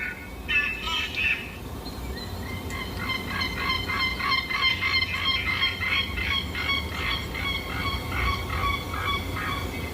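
Dinosaur call sound effect made of goose-like honking: two short calls at the start, then a fast run of short honks, about three a second, over a low rumble.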